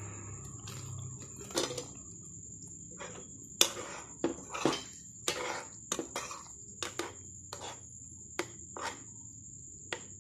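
Steel spoon clinking and scraping against a white-coated frying pan while stirring thick curry gravy: about a dozen irregular taps and scrapes.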